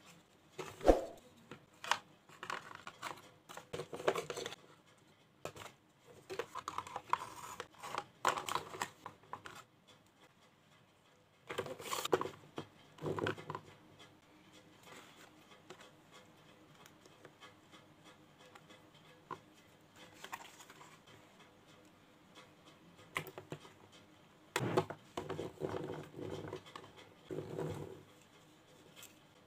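Hard plastic toy jeep parts handled on a tabletop: irregular clicks, knocks and scraping in a few bursts, with quieter stretches between.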